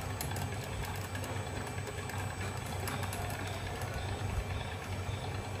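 Home-built coil-winding machine running, its brushless motor turning the winding spool with a steady low hum and many fine ticks as copper wire is wound on.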